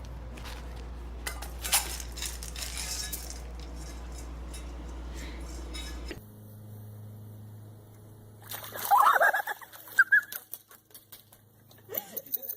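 A steady low hum with scattered clicks and knocks, which cuts off abruptly about halfway through. After it come a few loud animal calls that bend in pitch, around two-thirds of the way in, followed by light clicks.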